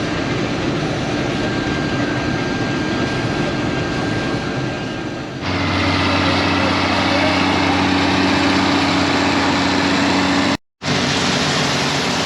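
International Harvester Axial-Flow combine running steadily while cutting wheat. About five seconds in the sound changes abruptly to a steadier engine drone with a clear low pitch, and it cuts out for a moment near the end.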